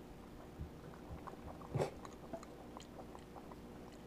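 Java macaque chewing a mouthful of pot roast, her cheek pouches stuffed full: quiet wet clicks of jaw and lips, with one louder one a little under two seconds in.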